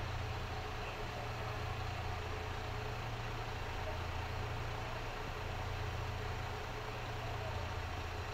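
Diesel railcar engine running steadily at idle, a constant low hum.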